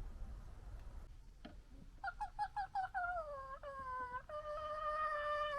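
Red fox calling: a quick stuttering run of about six short high calls, then a drawn-out falling whine and a long held whine that slides down at the end, the kind of gekkering and whining foxes make when squabbling.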